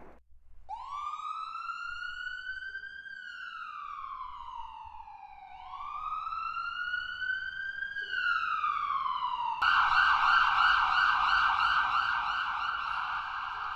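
Electronic siren wailing: two slow rises and falls in pitch, then a switch to a rapid steady warble.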